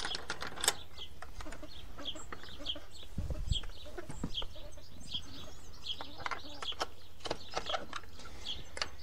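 Fowl clucking, with short high-pitched calls repeated about two to three times a second and scattered soft clicks.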